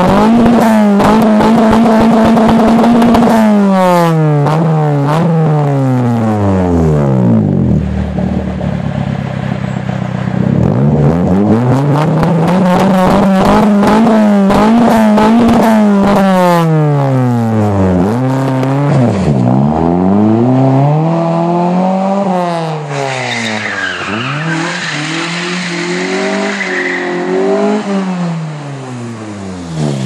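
1993 Mitsubishi Colt 1.3's four-cylinder engine free-revving through a large single aftermarket exhaust tip. It is held at high revs for a few seconds and drops back toward idle, is revved up and held again, then given several short blips.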